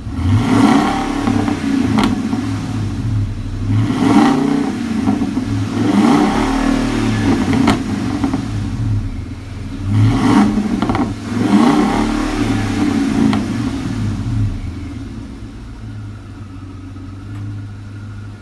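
Supercharged Ford F-150 revved repeatedly through a true-dual exhaust with JBA shorty headers, an X-pipe and Varex valved mufflers: about seven rises and falls in engine speed, some as quick blips. It settles back to a steady idle over the last few seconds.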